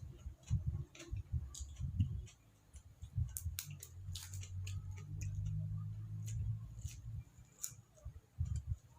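Eating sounds close to the microphone: irregular chewing thumps with small clicks and taps. A low steady hum runs for a couple of seconds past the middle.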